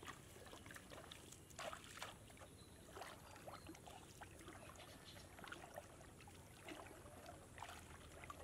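Faint water splashing and trickling as a wet fishing net is lifted and shaken over a plastic basin in shallow water, with irregular small splashes.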